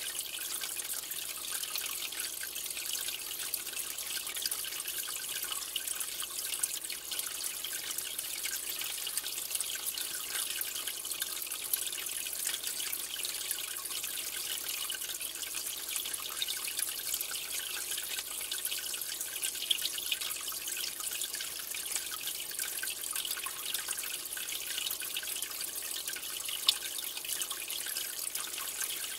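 Water trickling and bubbling in a fish tank, a steady high hiss with many small drips and pops.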